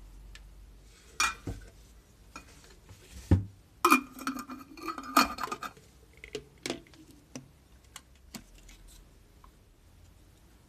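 Glass jam jar knocking and clinking against its metal lid, a brass lamp fitting and PVC pipe as it is handled and fitted. A dull knock comes about three seconds in, then a busy run of ringing clinks and rattles for nearly two seconds, then a few scattered light taps.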